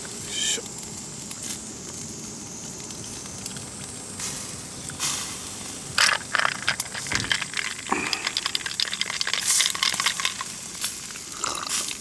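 Yakitori skewers sizzling over a charcoal grill as a steady hiss. About six seconds in, lemon pieces drop into a cup of lemon sour with a sharp click, then a dense run of irregular crackling ticks follows.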